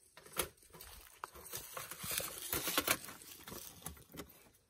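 Clicks and rattles of a wire grill rack being worked into the bottom of a folding sheet-metal charcoal chimney until it snaps in place, with a busier run of clatter and scraping about halfway through.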